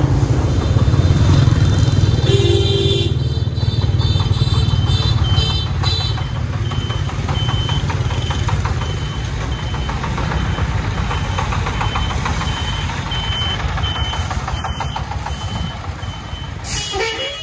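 Engines running with a steady low rumble as a công nông, a three-wheeled diesel farm truck, passes close by in street traffic. A short horn honk sounds a couple of seconds in, and from about six seconds on a high electronic beep repeats roughly one and a half times a second.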